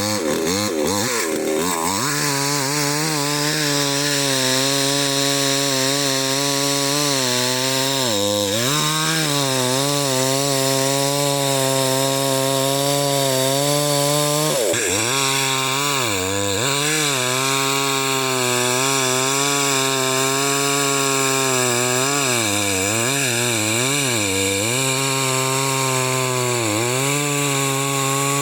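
Chainsaw cutting into a dead standing ash tree, the engine running hard under load the whole time. Its pitch sags and recovers several times as the chain bites into the dry hardwood.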